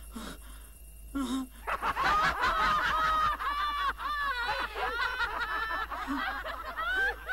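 A group of people laughing loudly together, many voices overlapping in fits of cackling laughter. It starts about one and a half seconds in, after a quieter moment.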